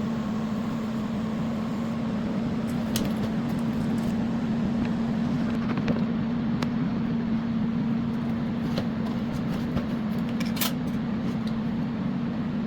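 TIG welding steel: a steady electrical hum from the welding machine with occasional sharp crackles and pops from the arc.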